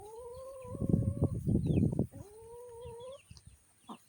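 Two long, drawn-out animal calls, each rising slightly in pitch and lasting about a second. Between them comes a loud spell of close, clattering low noise.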